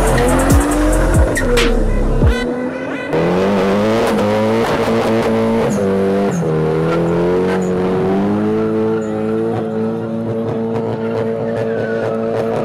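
A car engine revs up, then is held at high revs with tyre squeal as the car spins its wheels in a smoky burnout. Heavy bass music runs under the first couple of seconds.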